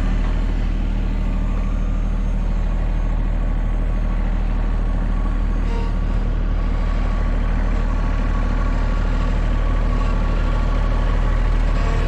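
Engine idling steadily at an even pitch, a deep, constant hum with no revving.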